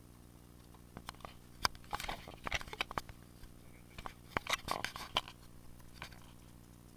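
Handling and movement noise in a small aluminum fishing boat: irregular sharp clicks, scrapes and knocks, coming in two clusters, about one to three seconds in and again about four to five seconds in.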